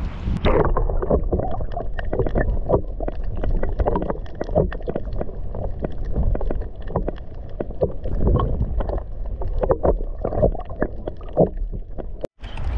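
Muffled water splashing and sloshing in a dense, irregular run of slaps, dull and lacking treble.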